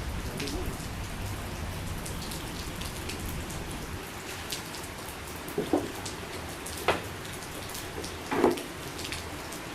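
Steady rain falling on surfaces, with many small drop ticks. Three louder short knocks or splashes sound in the second half, the last the loudest.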